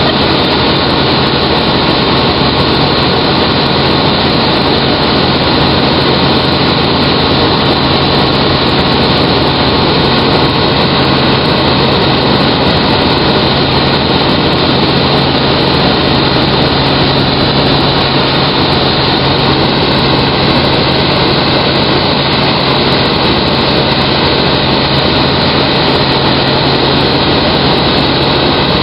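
Helicopter engine and rotor noise heard from inside the cabin in flight: a loud, steady drone with a constant low hum.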